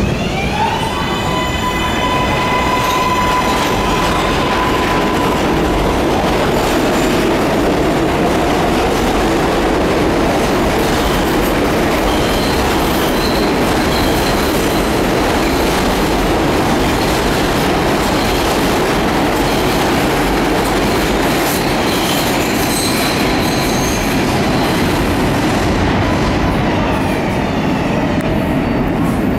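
R142A subway train pulling into the station. Its electric propulsion whine rises in pitch and then holds steady for the first several seconds. After that comes a steady, loud rumble of steel wheels on rail, with faint high squeals coming and going.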